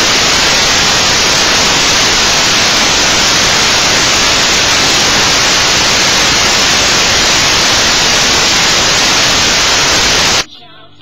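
Loud, steady static hiss like white noise, at an even level throughout, cutting off suddenly about ten and a half seconds in.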